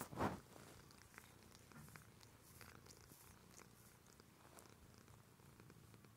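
Tortoiseshell cat purring softly and steadily while grooming, with faint short licking ticks. A brief rustling noise comes just at the start.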